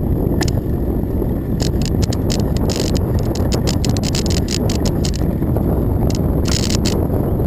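Bicycle riding on a paved trail: a steady low rumble of wind on the microphone and tyres on asphalt, with runs of rapid clicking and rattling through the middle and again near the end.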